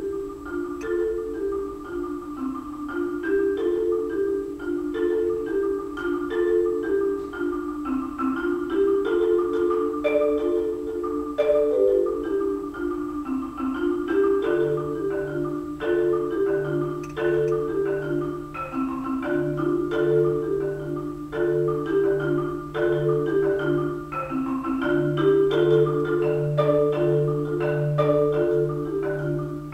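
Solo marimba playing a quick, repeating pattern of struck notes in the middle register. About halfway through, a low bass note is added and held underneath the pattern.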